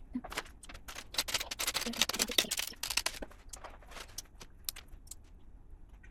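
Loose plastic LEGO pieces clicking and clattering as they are handled and rummaged through, a dense flurry of clicks about a second in that thins out to a few scattered clicks near the end.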